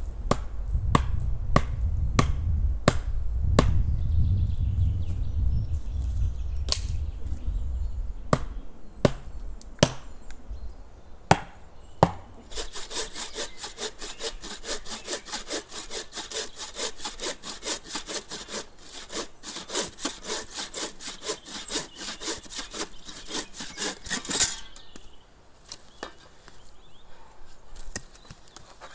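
Irregular sharp knocks on wood, over a low rumble, for the first twelve seconds or so. Then a hand saw cuts through wood in steady back-and-forth strokes for about twelve seconds and stops.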